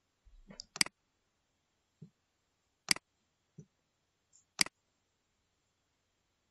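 Computer mouse buttons clicking as letters are drawn in Paint. There are three sharp clicks about two seconds apart, each with a softer low knock just before it.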